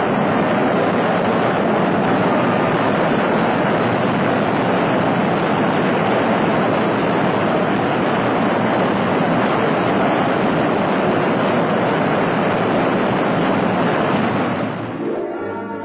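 Twin Pratt & Whitney J75 turbojets of the Avro CF-105 Arrow running on an engine ground run, exhausting into a ground-running silencer: a loud, steady jet roar that fades out near the end.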